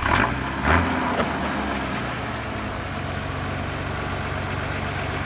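Vehicle engine idling steadily, with a short blip of revs about a second in.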